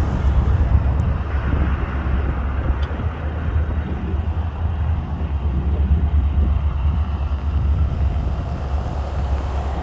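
Steady low rumble of an Embraer E175's twin CF34 turbofan engines heard from beside the airfield as the airliner touches down and rolls out along the runway.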